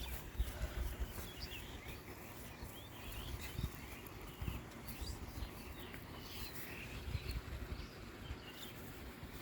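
Small birds chirping in short calls scattered throughout, over a low rumble.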